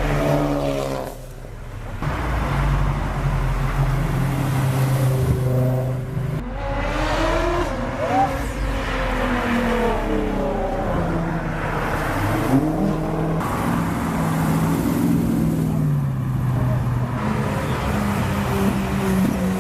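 Cars leaving the meet one after another, their engines revving and rising and falling in pitch as they pull away.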